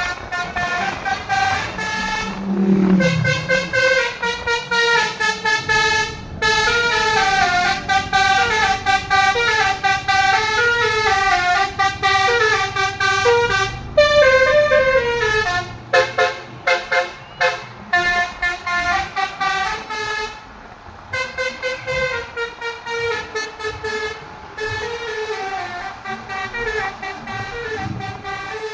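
Basuri telolet horn playing a melody from its sound module in quick stepped notes, horn tones rising and falling, with short breaks between phrases and a brief pause about twenty seconds in.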